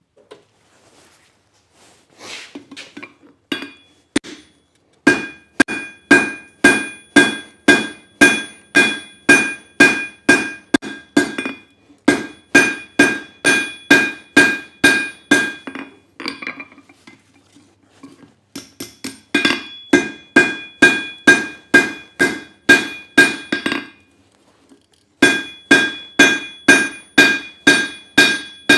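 Hand hammer striking red-hot leaf-spring steel on an anvil in even runs of about two blows a second, each blow with a clear metallic ring. The runs are broken by a few short pauses.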